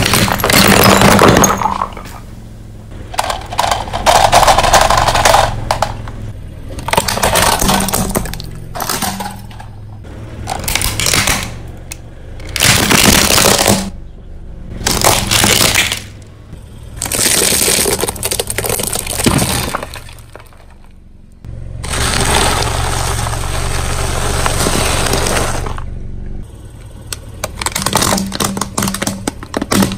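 A car tyre rolling over and crushing plastic toys and woven plastic balls: a string of loud cracking, crunching and snapping bursts, each lasting a second or two, with a low steady hum underneath.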